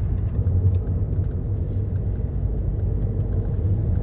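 Steady low rumble of a vehicle on the move, with a few faint clicks in the first second or so.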